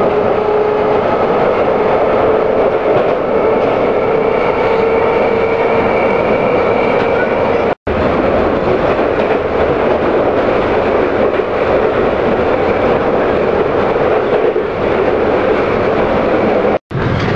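London Underground 1967 Stock train heard from inside the car while running: a loud, steady rumble and rattle with a whine that rises slightly in pitch over the first several seconds. The sound cuts out for an instant twice, once about halfway through and once near the end.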